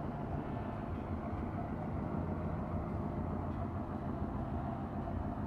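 Steady low drone of a boat's engine passing on the river.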